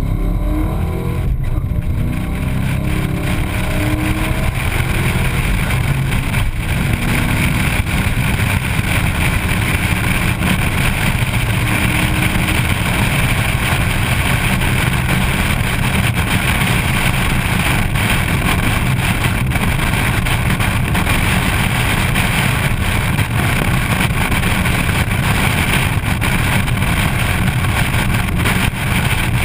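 Car engine pulling hard from a standing start, its pitch rising in the first few seconds, then a loud steady rush of wind and engine noise at speed on an exposed hood-mounted microphone.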